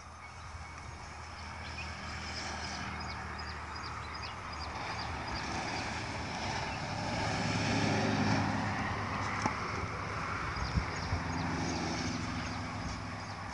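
A motor vehicle engine running steadily, growing louder to a peak about eight seconds in and then easing off, with short high chirps throughout and a few sharp knocks in the second half.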